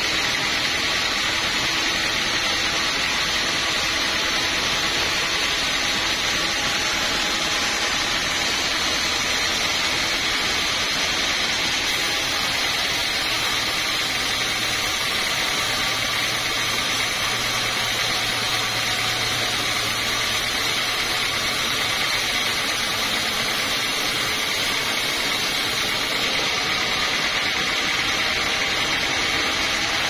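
Band sawmill running steadily with its blade cutting lengthwise through a dry teak log. The noise holds constant throughout, with a faint low hum joining in midway.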